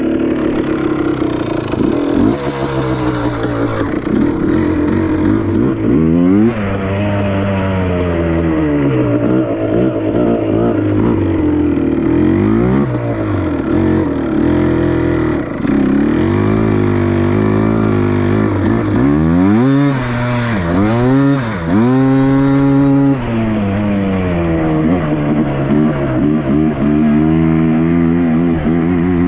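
2000 Yamaha Blaster's single-cylinder two-stroke engine running and being revved, its pitch rising and falling over and over, with several quick deep drops and climbs about two-thirds of the way through.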